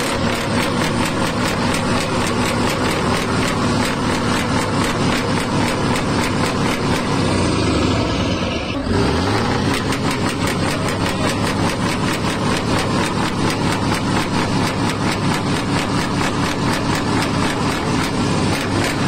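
Scania truck's diesel engine revved hard and held at high revs, a loud steady drone from its side exhaust; the revs drop briefly about nine seconds in and then climb back.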